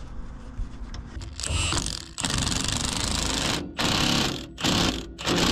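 Milwaukee Fuel cordless impact wrench hammering a shock-absorber mounting bolt tight in five bursts, starting about a second and a half in, the second burst the longest.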